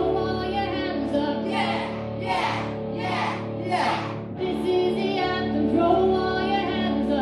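A live band of electric guitar, keyboard and electronic drums playing with a sung vocal, over held chords. Four loud hissing swells come about a beat apart between one and a half and four seconds in.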